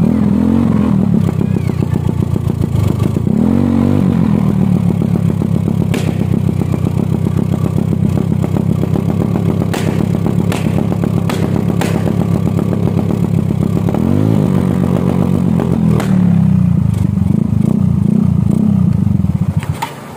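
Yamaha Mio Soulty scooter engine running and being revved, with sharp cracks from the exhaust scattered through: rapid backfire set off by an interrupter relay cutting the ignition. The engine stops near the end.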